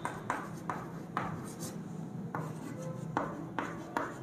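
Handwriting strokes: a quick string of short scratches at an uneven pace, over a faint steady hum.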